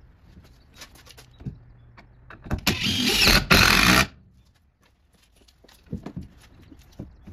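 Cordless impact driver hammering a long HeadLok structural screw through a 2x4 block into a wall stud, in two short bursts a little before the middle, about a second and a half in all. Faint clicks of tool handling come before and after.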